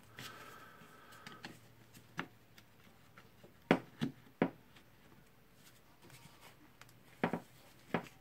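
Scattered sharp clicks and knocks of a screwdriver against the metal gearbox housing of a DeWalt D25123 rotary hammer drill as it is pried at, the housing still stuck.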